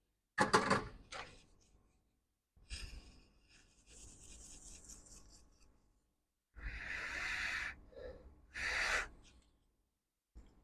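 Handling noises at a repair bench as a circuit board and tools are moved: a knock about half a second in, a few seconds of scraping and rubbing, then two short bursts of hiss.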